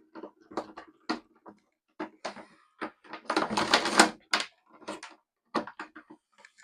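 Hands handling electrical cable and conduit fittings: irregular clicks and taps, with a louder scraping rattle about three to four seconds in.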